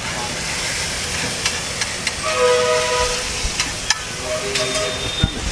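Masala gravy sizzling on a hot flat griddle just after water has been poured in, with a metal spatula clicking and scraping against the griddle several times. A steady pitched tone sounds twice in the background, around the middle and near the end.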